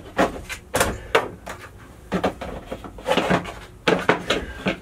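Plastic trim cover at the base of a VacuFlush RV toilet being worked loose by hand, giving a run of irregular clicks, knocks and rattles as its clips let go.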